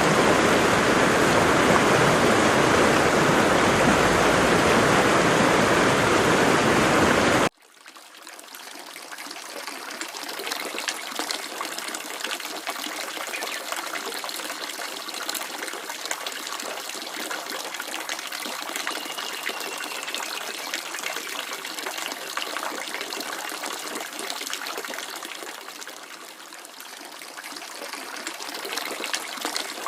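Waterfall rushing loudly, cut off abruptly about seven seconds in and replaced by a quieter, thinner splashing and trickling of flowing water.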